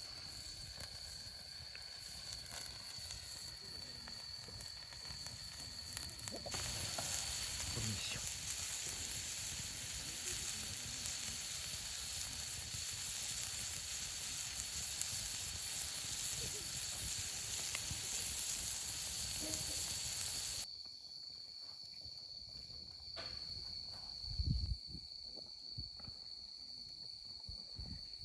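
Food sizzling in a hot pan, an even hiss that starts abruptly a few seconds in and cuts off abruptly about fourteen seconds later, over a steady high-pitched insect trill.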